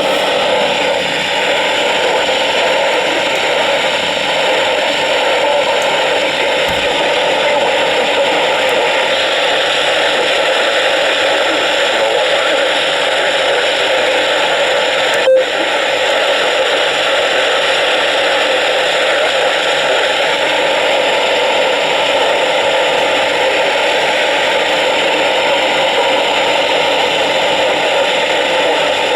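Weather radio receiver hissing with steady static from a weak, poorly received station signal. A single short click about halfway through.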